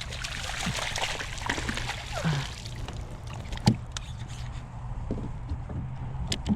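Water splashing and sloshing as a hooked trout thrashes at the surface beside a kayak, strongest in the first couple of seconds. A sharp knock about halfway through and a smaller one near the end.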